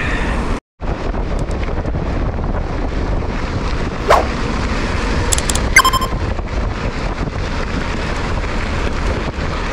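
Wind rushing over an action camera's microphone on a moving mountain bike, with tyre and track rumble. The noise drops out briefly just under a second in. A short rising squeak comes about four seconds in, and a short high tone near six seconds.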